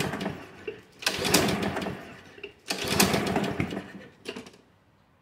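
Honda push mower's small four-stroke engine being pull-started: after the tail of one pull fades, two more hard pulls of the recoil starter, about a second and a half apart, each crank it over briefly before it falls quiet again. The engine does not keep running.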